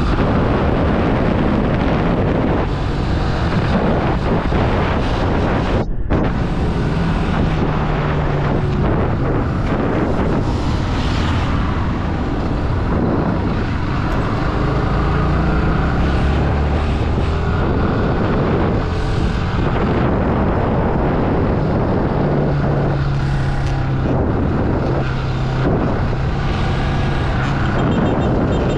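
Motorcycle engine running while riding along a road, its note shifting up and down in pitch as the speed and gears change, with wind rushing over the microphone. The sound cuts out for an instant about six seconds in.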